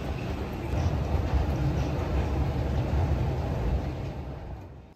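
Escalator running: a steady low rumble that fades out near the end.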